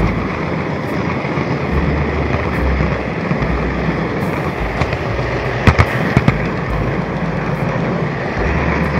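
N-gauge model train rolling along the track, picked up by a small camera riding on the train: a steady rattling, crackling rumble of wheels and motor, with a few sharp clicks about six seconds in.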